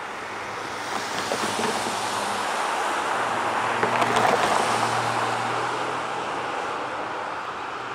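A passing vehicle's rushing noise swells to a peak about four seconds in, then fades.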